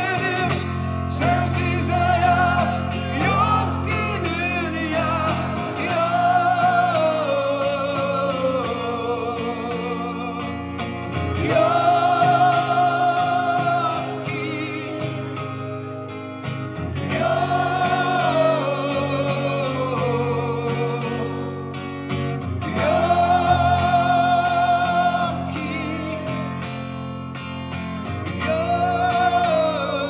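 Live song from a male singer with acoustic guitar: long held sung notes with vibrato, rising and falling every few seconds, over sustained guitar chords.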